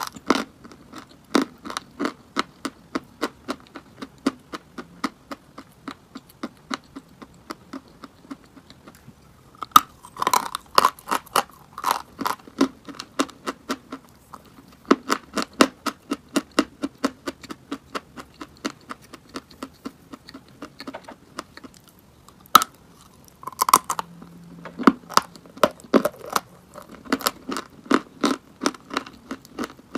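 Chalk being bitten and chewed close to the microphone: a run of short, sharp crunches, several a second, broken by two brief pauses, with harder bites at about ten and twenty-three seconds in.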